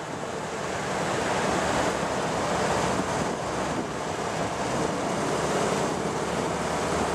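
A steady rush of wind and road noise inside the cabin of a 1978 Triumph Spitfire 1500 driving at road speed; it grows louder about a second in, then holds steady.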